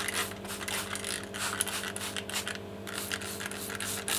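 Trigger spray bottle squirting soapy water over a pressurized ball-lock keg to check it for a CO2 leak: a quick run of short hissing sprays, about three or four a second, with a brief pause near the middle. A steady low hum runs underneath.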